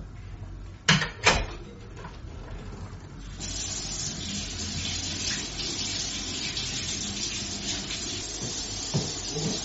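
Two sharp knocks, then a kitchen tap turned on about three seconds in, running water steadily into the sink.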